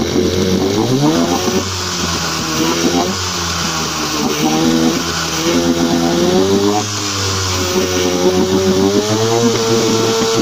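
1977 Suzuki DT9.9 two-stroke twin-cylinder outboard motor running in a test tank, revved up and back down several times so its pitch rises and falls.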